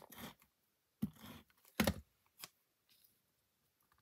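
Cardstock being handled and pressed down on a tabletop: four or five short rustles and taps over about two and a half seconds, the loudest near two seconds in.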